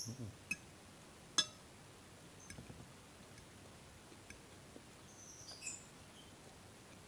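Quiet eating sounds: a few light clicks and one sharp clink about a second and a half in, like a utensil against a plate. Small birds chirp briefly in the background a few seconds later.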